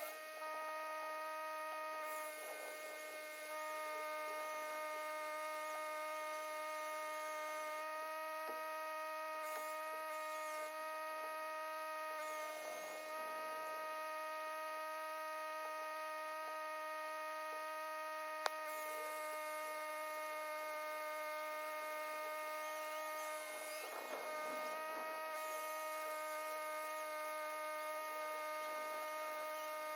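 Portland 14-inch corded electric chainsaw motor running steadily at full speed, giving an even, high whine whose pitch barely changes. One sharp click about two-thirds of the way through.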